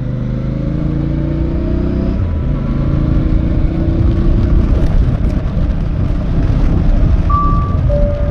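Royal Enfield Bear 650's 648cc parallel-twin engine accelerating under load, its pitch rising twice and dropping at gear changes about two seconds in and near five seconds, then running on with wind and road noise.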